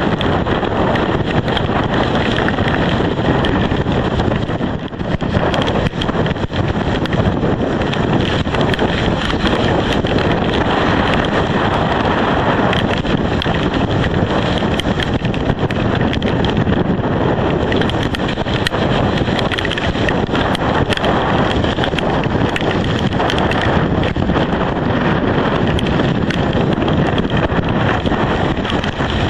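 Strong storm wind buffeting the microphone: a loud, steady rushing rumble that dips briefly about five seconds in.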